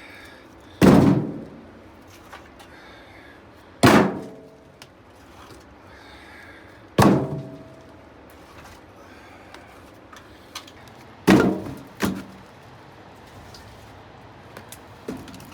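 Split hardwood firewood pieces knocking down hard onto a pile: five loud wooden thunks about three seconds apart, the last two close together, each ringing briefly.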